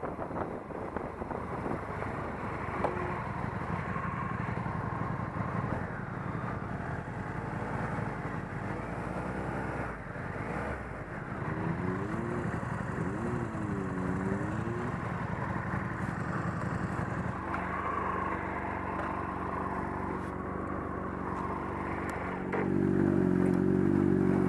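Motorcycle engine running under way along a twisting road. Around the middle the revs fall and rise twice, and near the end the engine gets louder as it pulls harder.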